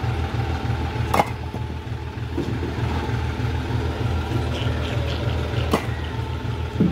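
Diesel tractor engine idling with a steady low throb, with a few sharp knocks: one about a second in and two near the end.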